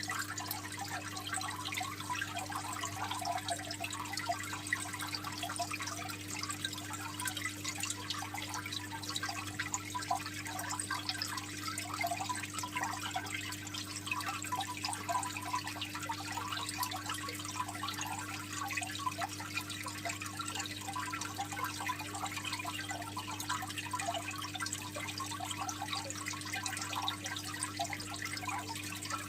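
Aquarium water trickling and splashing steadily over a constant low hum.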